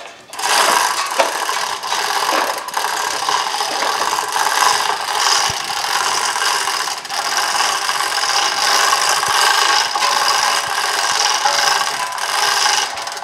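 Manual chain hoist worked hand over hand: the hand chain clatters and rattles steadily through the hoist as it lifts the heavy cast iron knee of a milling machine.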